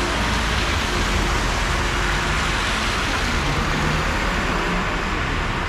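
A car driving past on a flooded road, its tyres hissing through the standing water; the hiss swells slightly mid-way as it passes, over a low rumble.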